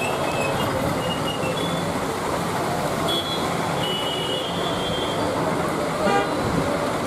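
Street traffic on a wet road: a steady hiss of rain and passing vehicles, with short high-pitched horn toots early on and a longer toot about three to five seconds in.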